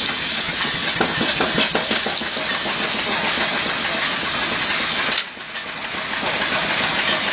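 Steam hissing steadily from the sawmill's steam-driven machinery as it runs; the hiss drops off abruptly about five seconds in and builds back up.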